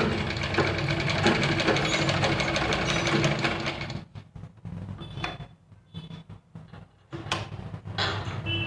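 Domestic sewing machine stitching a seam, a fast, even rattle of the needle mechanism. It stops about four seconds in while the fabric is repositioned, gives a brief burst, then starts stitching again near the end.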